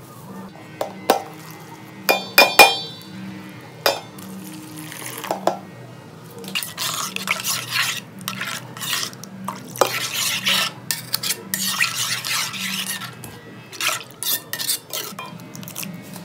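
Metal spoon against an aluminium bowl: several sharp ringing clinks, then a long stretch of stirring and scraping as ground groundnut flour is mixed with liquid into a paste.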